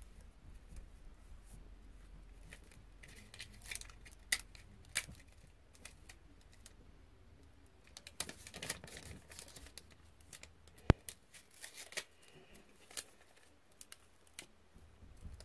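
Paper and sticky tape being handled as a paper cover is taped onto a tablet: scattered faint clicks and short rustling, tearing sounds, with one sharp click about two-thirds of the way through.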